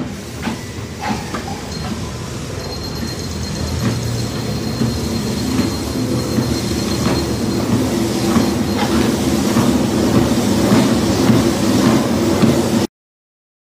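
American Fitness motorized treadmill running, its motor and belt hum growing steadily louder as the speed is stepped up, with scattered short knocks and clicks. The sound cuts off abruptly near the end.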